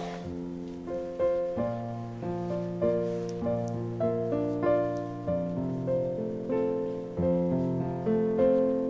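Solo piano playing a slow, soft hymn-like accompaniment, sustained chords changing about every half second to second.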